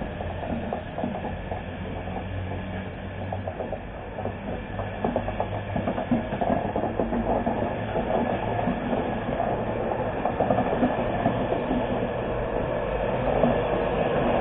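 LNER InterCity 225's Mark 4 coaches rolling past as the train pulls away, with the wheels clacking in quick beats over the track. The noise builds toward the end as the Class 91 electric locomotive propelling the train from the rear draws near.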